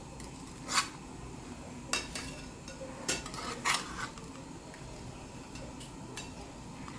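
Utensils clinking against a plate: a handful of sharp clinks and light scrapes over the first four seconds, the first the loudest.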